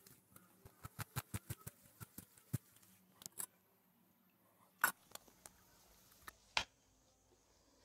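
A bare hand beating cake batter against a tabletop: a quick run of small slaps, about five a second, for the first two and a half seconds, then a few scattered single slaps and knocks.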